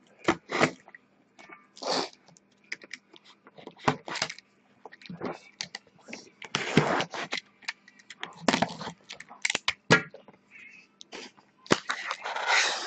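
A box cutter slicing the packing tape on a cardboard shipping case, then the case's flaps being pulled open and the boxes inside handled: a run of irregular scrapes, cracks and rustles.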